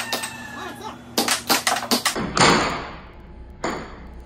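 Air hockey mallets and puck clacking on the table in fast play: a quick run of sharp hits about a second in, then two louder strikes with a short ringing decay.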